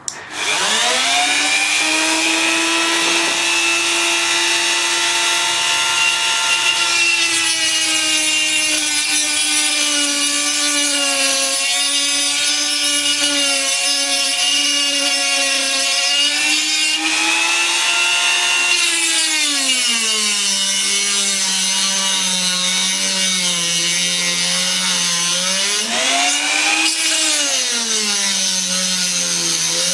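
Dremel rotary tool with a small cutting wheel spinning up and cutting into a combination lock: a steady high whine with grinding over it. Its pitch drops about two-thirds of the way through, rises briefly and drops again near the end.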